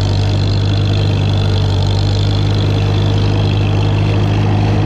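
1942 Farmall H tractor's four-cylinder gasoline engine idling steadily, heard from just behind the exhaust stack.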